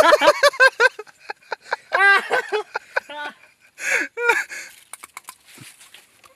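A boy's short pained cries and groans, several brief yelps in bursts over the first four and a half seconds. After that come only faint clicks and rustles.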